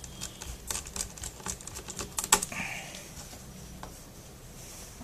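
A quick, irregular run of light clicks and taps as a screwdriver and small screws are handled against the plastic and metal underside of a Dell Studio laptop, with one louder click about two and a half seconds in followed by a brief scrape.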